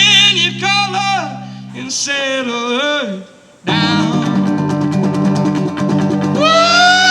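Background song with singing and acoustic guitar: drawn-out, wordless sung notes over a guitar accompaniment, with a brief break about halfway and a long held note near the end.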